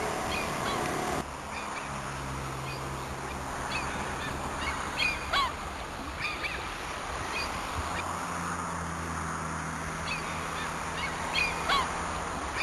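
Seabirds calling on a rocky shore: short, repeated honking calls in small clusters, some sliding down in pitch, over a steady background hiss.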